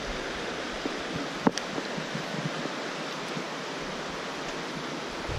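Steady rushing and rippling of a shallow river current. A single sharp click sounds about a second and a half in.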